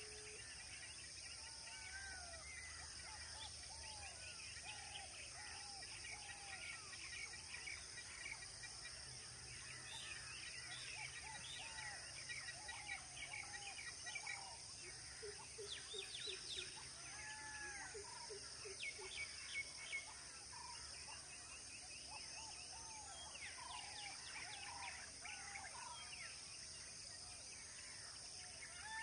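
Many birds chirping and calling in a natural chorus, short rising-and-falling notes repeated throughout, over a steady high-pitched drone.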